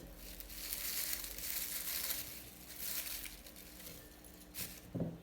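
Dry crinkling and rustling of dried linden blossoms being handled and dropped into a teapot, dying away after about three and a half seconds, with a short dull thud near the end.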